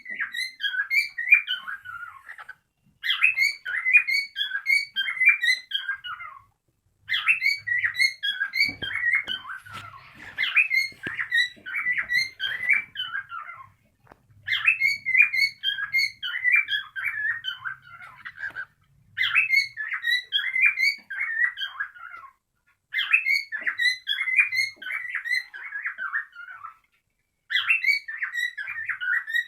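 Cockatiel chirping and warbling in quick runs of notes, repeated in phrases of two to four seconds with short pauses between. It is the kind of song played to pet cockatiels to stimulate mating.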